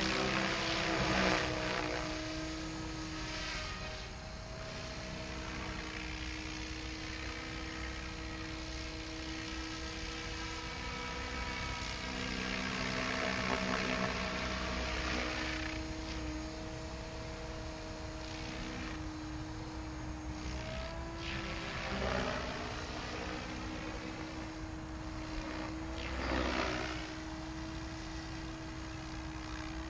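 Goblin 700 radio-controlled helicopter in flight: a steady rotor and motor hum with a constant whine, swelling louder and sweeping in tone several times as it passes closer.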